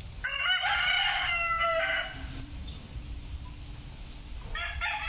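Rooster crowing: one long crow, then a second crow beginning near the end.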